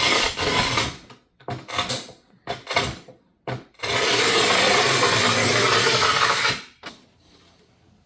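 A few short scraping and knocking handling sounds, then a power tool runs steadily for about three seconds and stops.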